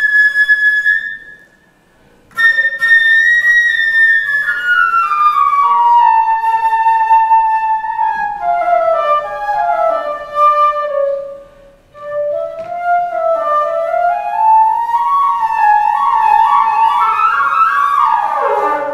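Flute playing a slow, free melody that moves in steps and glides. It breaks off briefly twice and ends with a quick falling run.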